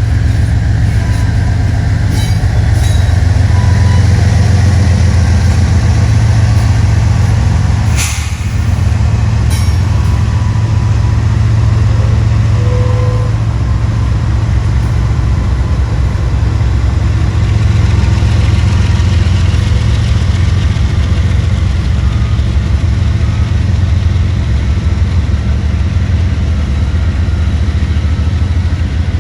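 A train rolling past close by: a loud, steady low rumble of wheels and cars on the rails, with a sharp clank about eight seconds in.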